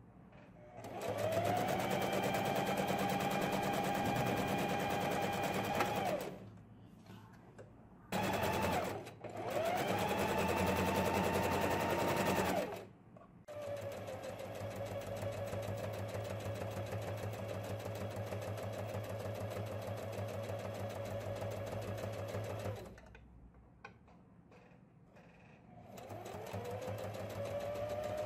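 Electric sewing machine stitching a seam in five runs of a few seconds each, the longest about nine seconds, stopping in between. Its motor whines up to speed at the start of each run.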